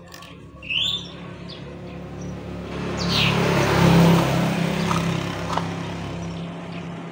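A motor vehicle's engine humming steadily, swelling to its loudest about four seconds in and fading again as it passes. A small bird chirps twice.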